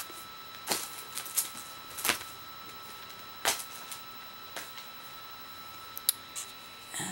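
Sporadic light clicks and brief rustles of small items being handled and set down, about half a dozen, with a faint steady high-pitched hum underneath.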